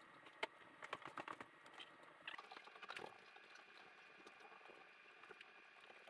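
Faint computer mouse clicks, a quick scattering of them in the first half, over near-silent room tone.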